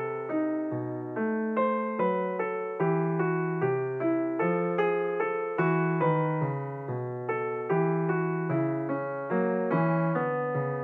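Background piano music: a melody of notes struck at a steady pace, each fading out.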